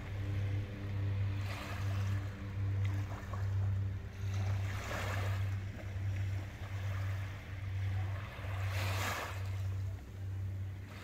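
Distant seaplane's propeller engines droning low and steady, with a slight pulsing, on its take-off run and climb-out. Small waves wash onto the shore about three times.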